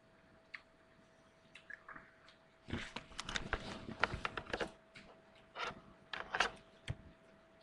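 Rustling and clicking handling noises, most likely the handheld camera being moved about: faint at first, then a dense run of clicks and rustles from about three seconds in, with two shorter bursts near the end. A faint steady tone runs underneath.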